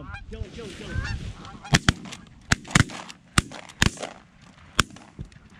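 Goose honking, then a rapid volley of about eight shotgun blasts from several hunters firing at geese coming in, spread over about three seconds from roughly a second and a half in.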